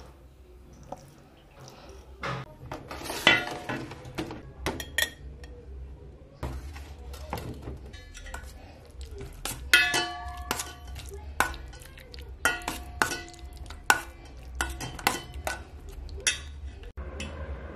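Metal spoon stirring tuna and mayonnaise in a stainless steel bowl, with many irregular clinks and scrapes of spoon on steel; the sharper knocks leave the bowl ringing briefly.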